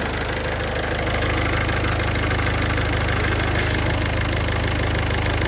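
Car engine idling with the clutch pedal pressed, with a rapid, high cricket-like chirping from the clutch release (thrust) bearing, whose balls are starting to fail. The chirping stops about three seconds in while the engine keeps running.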